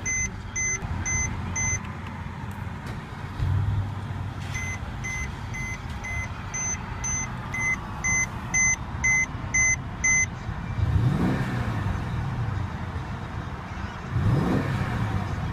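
2014 Mercedes-Benz CLS 550's twin-turbo 4.6-liter V8 idling just after a push-button start, heard from inside the cabin. A dashboard warning chime beeps about two and a half times a second for the first couple of seconds and again for several seconds in the middle. Near the end the engine is revved briefly twice, its pitch rising and falling each time.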